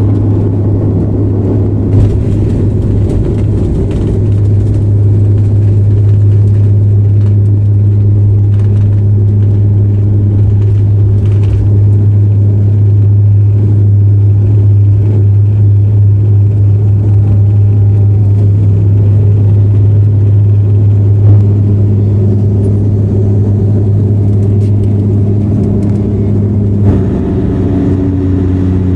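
Airliner engines heard inside the passenger cabin: a loud, steady low drone with a slight change in its note near the end.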